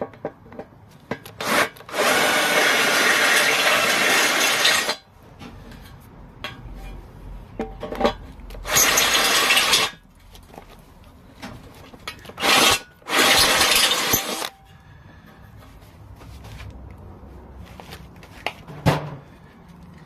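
Cordless drill turning a large step drill bit through an aluminium sump pan, enlarging a hole to AN10 size for a weld-in fitting. It cuts in four bursts: one of about three seconds near the start, then three shorter ones, with short clicks in the pauses.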